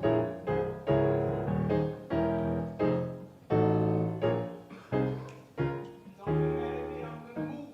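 Piano or keyboard playing a slow introduction of chords, each struck and left to die away.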